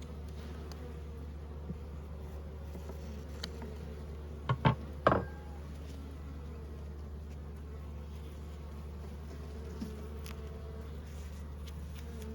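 Honeybees buzzing steadily around an open hive. About four and a half seconds in comes a quick cluster of three knocks, the loudest sounds here.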